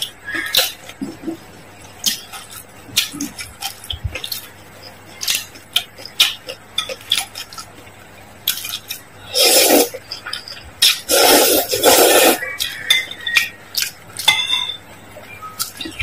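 Chopsticks and a metal spoon clinking against a glass bowl as noodles are stirred and lifted in broth. A little past halfway, two loud, long slurps of noodles, then more clinks.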